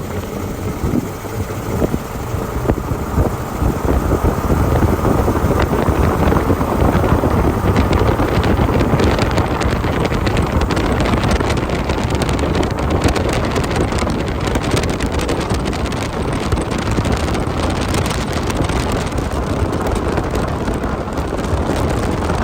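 Jeep Wrangler driving: engine and road noise with wind buffeting the microphone, getting louder about four seconds in.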